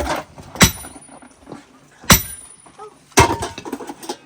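Repeated heavy strikes, three in all, about one every second and a half, each a sharp knock, some followed by a brief thin metallic ring.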